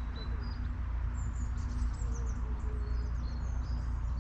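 Narrowboat diesel engine running steadily underway, a low even drone, with small birds chirping and whistling over it throughout.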